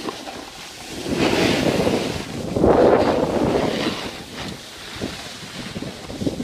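Wind rushing over the microphone and skis hissing and scraping over packed snow while skiing downhill, swelling louder twice in the first half.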